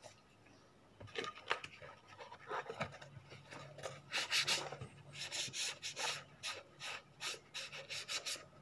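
An abrasive scuffing pad scrubbing over a leather shoe upper in quick repeated strokes, sanding the cracked leather smooth before a finishing coat is applied. The rubbing starts about a second in and grows louder from about four seconds in.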